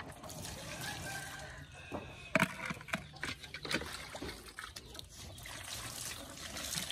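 Water poured from a bowl, splashing and trickling over plastic toy dump trucks and wet concrete, with sharper splashes about two and a half seconds in.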